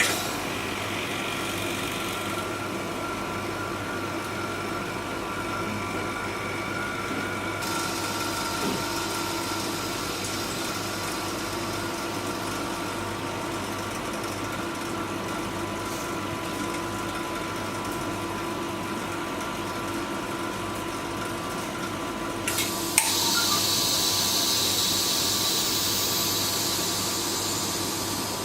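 Edge (curved-surface) OCA vacuum lamination machine running its laminating cycle: a steady mechanical hum with a faint fixed whine and hiss. About 23 seconds in there is a click, then a louder, steady hiss.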